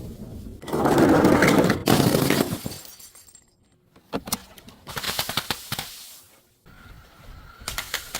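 Glass bottle shattering and being crushed: sharp cracks, then a dense stretch of crunching about a second in, followed after a short pause by more clusters of cracking and tinkling shards.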